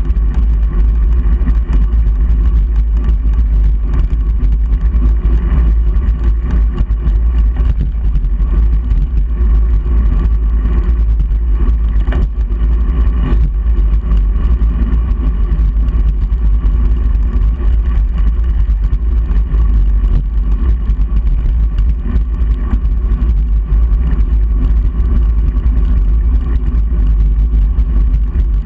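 Steady low wind rumble on a handlebar-mounted GoPro Hero3 as a bicycle rolls along a road, mixed with tyre and road noise.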